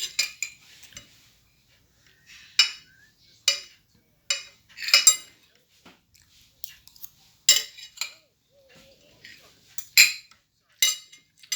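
A spoon clinking against a dish during a meal: about ten short, sharp clinks at uneven intervals, each ringing briefly.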